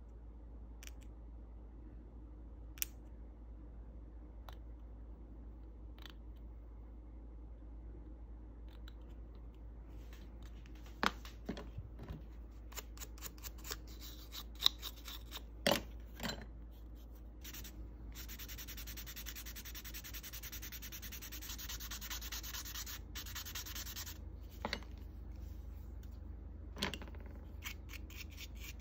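Hand sanding of a small polystyrene kit part with a sanding sponge, a steady rubbing for several seconds in the latter half. Before it, about midway, comes a run of small clicks and scratches as the plastic part is worked and handled.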